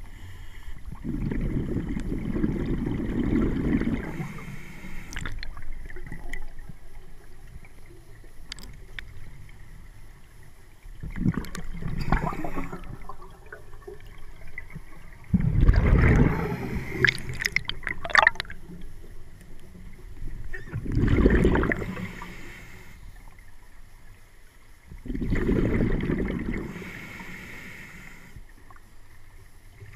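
A scuba diver's exhaled bubbles gurgling out of the regulator underwater, in about five bursts spaced four to six seconds apart with quieter stretches between, in time with breathing.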